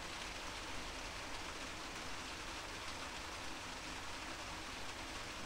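Steady hiss of background noise from an open audio line, with no speech and no other events.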